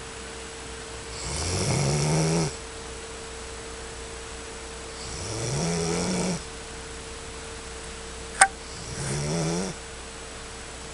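Snoring: three long snores about four seconds apart, each rising in pitch as it starts, over a steady faint hum. A single sharp click sounds just before the third snore.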